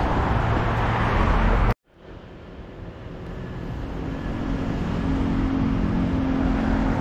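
Road traffic noise from passing vehicles. It cuts out abruptly about two seconds in, then fades back in gradually, with a steady engine hum building near the end.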